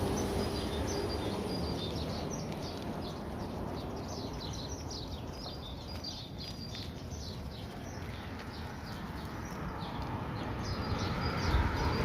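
Small birds chirping in many short, high notes, over steady outdoor background noise. A low rumble grows louder near the end.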